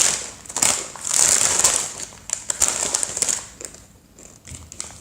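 Plastic snack bag of veggie chips crinkling as it is handled and rummaged through, in two loud spells that die away after about three and a half seconds.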